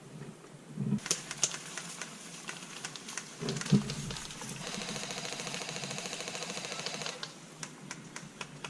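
Airsoft gun firing: scattered single shots, then a rapid full-auto burst lasting about two and a half seconds, with a couple of low thumps in between.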